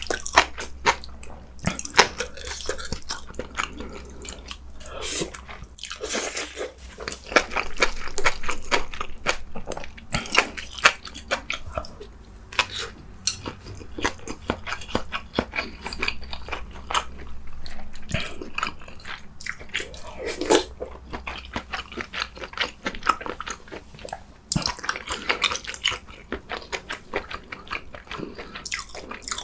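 Close-miked eating: a mouthful of noodles chewed with wet, smacking mouth sounds and many small clicks, and a spoon scooping from a metal pot near the end.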